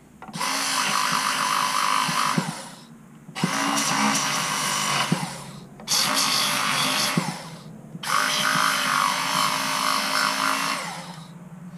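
Handheld power sanding tool run in four bursts of a few seconds each, with short pauses between. A steady motor whine carries a grinding noise as it sands down the corners of the scabbard's mounting pieces so that they seat and their holes line up.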